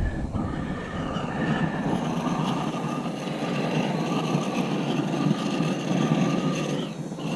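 A steady rushing hiss with faint whistle-like tones over it, from a hot heat-cleaning tool being played over a beehive box to kill small hive beetle larvae.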